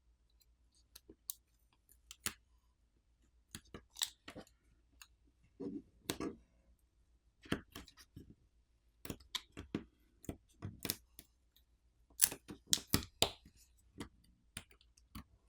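Irregular sharp clicks and taps of small tools and tablet parts being handled during disassembly: metal tools and tweezers touching plastic and metal components, with a quick run of clicks near the end.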